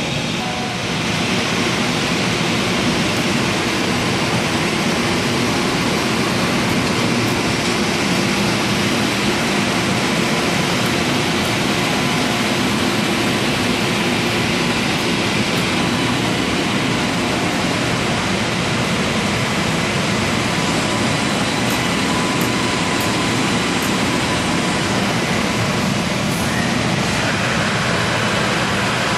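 Flatbed UV printer running, its print carriage travelling over the bed as it prints on rows of hockey pucks. It gives a steady mechanical running noise with a faint hum.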